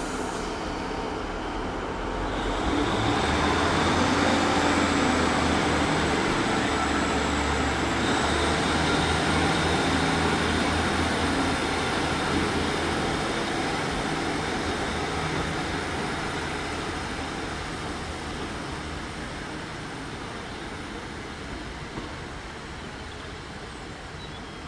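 Two coupled Class 150 diesel multiple units pulling away, their underfloor diesel engines opening up about two seconds in with a low steady drone and a faint high whine. The sound eases off gradually over the last ten seconds.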